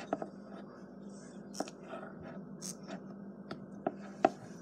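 A plastic spoon stirring a crumbly flour, salt and water mix in a glass bowl: soft scraping with a few sharp clicks of the spoon against the glass, the loudest a little after four seconds in.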